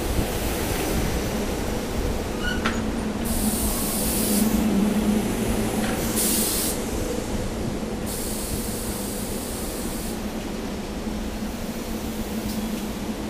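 SEPTA Silverliner electric commuter railcar humming steadily from close by. Three bursts of hissing air come between about three and ten seconds in.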